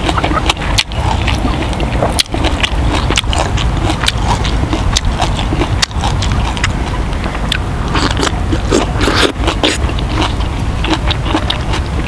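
A person eating grilled fish and rice by hand, close to a clip-on microphone: fingers pulling the fish apart and chewing, heard as many small irregular clicks and crackles over a steady low rumble.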